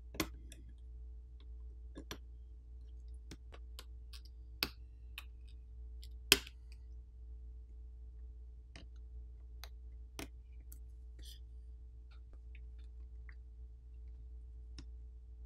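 Scattered small clicks and taps of a plastic pry tool working against the internal parts of a Google Pixel Fold smartphone as components are pried loose. The loudest click comes a little past the middle. A faint steady hum runs underneath.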